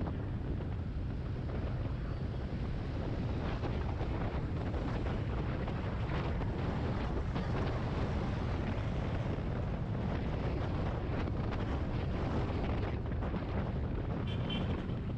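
Wind buffeting the microphone over the running single-cylinder engine of a Yamaha XT250 Serow cruising in traffic, with steady road noise. A few short high beeps near the end.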